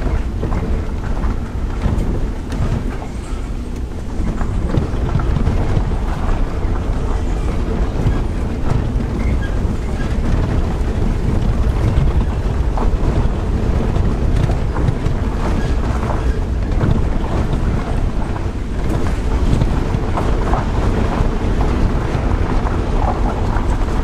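Car driving slowly along a rough unpaved lane: a steady low rumble of engine and road noise, with wind buffeting the microphone.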